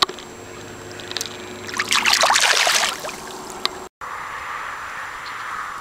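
A northern pike being released in shallow river water splashes loudly for about a second. After a cut, steady rushing of river water running over a shallow riffle.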